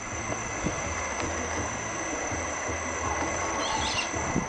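Outdoor ambience: a steady high insect drone over a low rumble, with a brief high chirp near the end.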